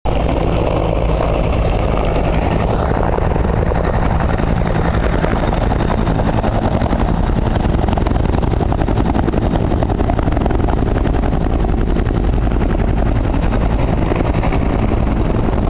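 Military helicopter flying low, with a steady, loud beat of the rotor blades and engine noise that holds throughout.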